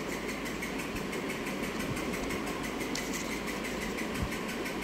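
Steady background hum of a running motor, even in level, with faint high whine tones and no distinct events.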